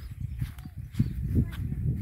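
Wind buffeting the microphone: an irregular, gusting low rumble with no clear tones.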